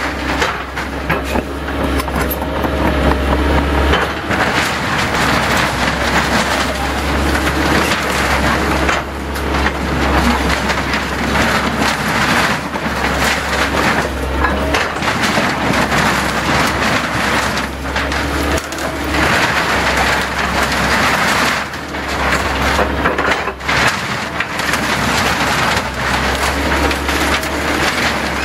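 Volvo compact excavator's diesel engine running under load as its bucket and thumb crush and fold the sheet-metal panels and wood framing of a shed, with continual crumpling, scraping and cracking of metal and wood over a steady low engine hum.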